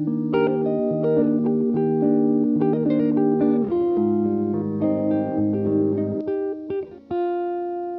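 Background music led by a plucked guitar over a bass line, ending on a held note.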